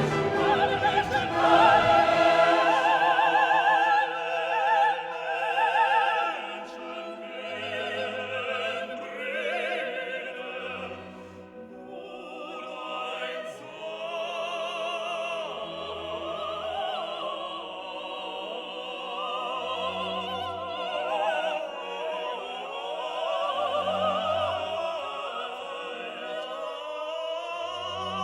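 Background music: operatic classical singing with orchestra, with vibrato voices held over sustained notes and a regular low pulse.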